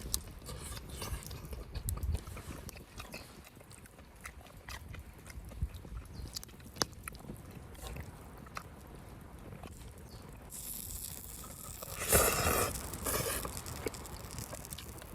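A person eating close to the microphone: chewing with small scattered clicks, and a louder, longer burst of noise about twelve seconds in.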